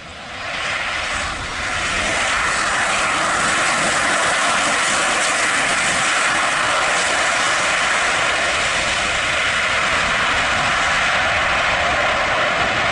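Boeing 737-800 airliner's jet engines roaring on the landing roll just after touchdown. The noise swells over the first two seconds, then holds loud and steady.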